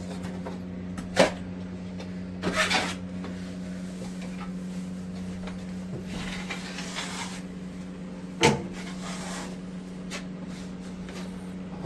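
Work noises in a small room: two sharp knocks and a few scraping sounds over a steady low hum.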